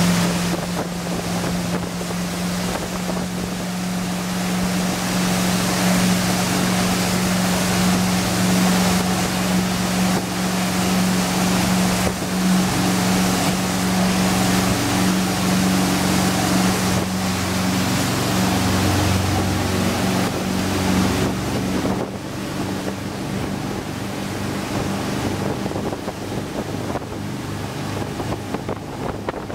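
The twin Mercruiser 7.4-litre MPI V8 inboard engines of a 34-foot cruiser run steadily with the boat on plane, a constant low engine drone under the rush of the wake and wind on the microphone. The sound drops a little about three-quarters of the way through.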